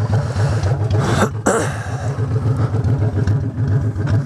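Honda Shadow V-twin with Vance & Hines Cruisers exhaust pipes running at a steady, even beat, with faint ticks over it. The ticks are the new pipes clicking, which the rider takes for the pipes breaking in. A brief rushing noise comes about a second in.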